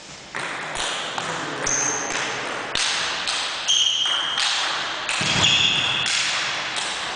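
Table tennis rally: the celluloid ball clicks sharply off paddles and table about twice a second, echoing in the sports hall. Several short high squeaks of sports shoes on the wooden gym floor come between the strokes.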